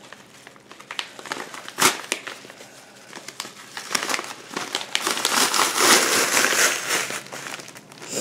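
Packaging crinkling and rustling as a mailed package is unwrapped by hand, with a sharp snap about two seconds in and a louder, denser stretch of crinkling from about four seconds to near the end.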